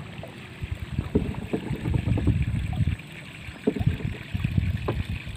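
Water lapping and slapping against the side of a small fishing boat in irregular, uneven knocks over a low, choppy wash.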